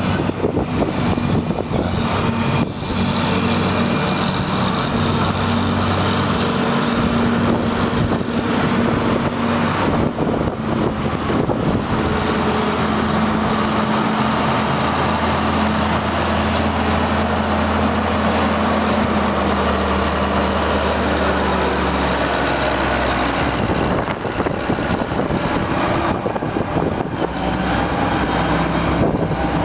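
John Deere 9300 four-wheel-drive tractor's diesel engine running steadily as the tractor drives around, its pitch shifting a few times.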